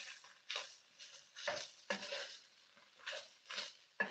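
A wooden spatula stirring and scraping pieces of meat frying in a large pan, in short irregular strokes about two a second, with faint sizzling.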